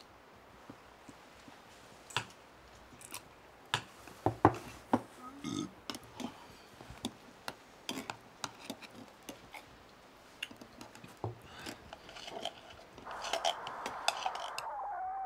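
Spoons clinking and scraping against metal cups and bowls as people eat, in irregular small clicks with a few louder knocks. Near the end a wavering tone comes in.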